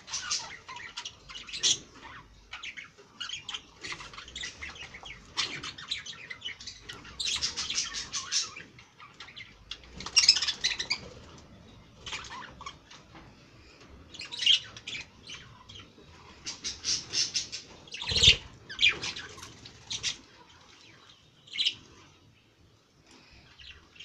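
Budgerigars chirping and chattering in short bursts, with wing flaps as birds move on and off the feeding dish. A sharp knock about three-quarters of the way through is the loudest single sound.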